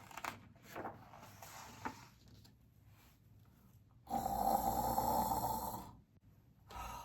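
A person imitating a dog's snore: one long, loud snore starting about four seconds in and lasting around two seconds, with faint breathy rustling before it.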